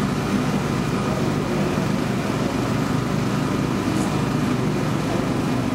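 Vintage Honda Formula One car's V12 engine idling steadily in the pit garage, holding one even pitch with no revving.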